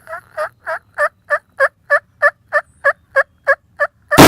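A long, evenly paced run of turkey yelps, about three notes a second, cut off at the very end by a loud gunshot.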